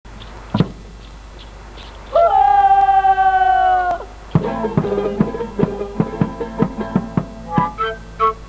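Andean folk band opening a song: a single drum hit, then a long held note that scoops up at its start and falls away at its end. Then bombo drum and strummed guitar strike up a steady beat, with short high wind-instrument notes near the end.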